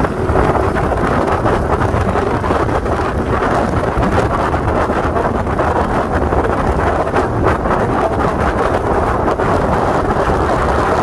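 Loud, steady wind buffeting the microphone of a motor scooter on the move, with the scooter's engine and road noise mixed in underneath.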